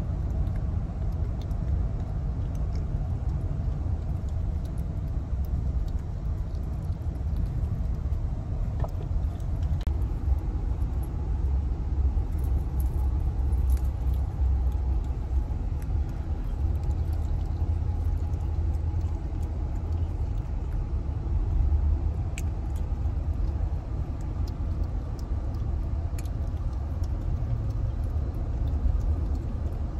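Steady low rumble of a car driving along, road and cabin noise heard from inside the car.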